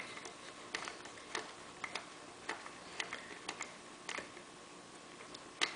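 Faint, irregular small metallic clicks and ticks as fingers turn a carburetor mounting nut onto its stud by hand, with one louder click near the end.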